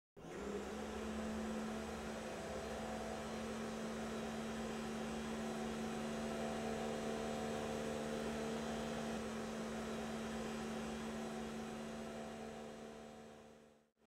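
A steady electrical hum with one strong low tone and fainter higher tones above it. It starts abruptly and fades away over the last couple of seconds.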